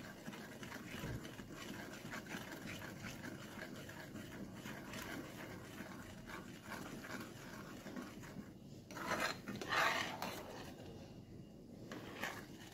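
A steel spoon stirring and scraping thick, sweetened reduced milk in a steel pan over a high flame, a faint steady rubbing. Two short, louder rasping sounds come about nine and ten seconds in.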